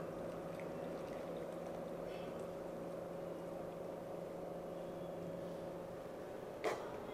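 Steady hum with soft pouring of hot chicken rasam from a ladle into a bowl, and one sharp click near the end.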